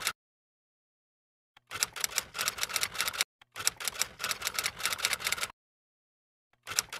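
Typewriter key-clicking sound effect, the kind laid under text being typed onto a title card. It comes in quick runs of clicks, about six a second, in three bursts with silences between them: the first about two seconds in, the last starting near the end.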